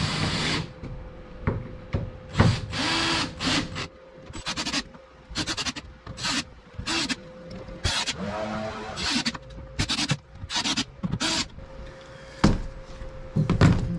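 Hand work on hardware: a series of short rubbing, scraping and clicking sounds as rod tubes, mounting plates and bolts are fitted back onto a kayak, over a faint steady hum.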